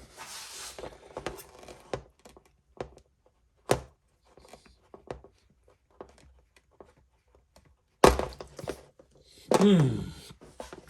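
Hands working LS fuel injectors out of their fuel rail: scattered clicks and light knocks of the parts, a hiss in the first second, a sharp knock about four seconds in and a louder one about eight seconds in. Near the end there is a short sound that falls in pitch.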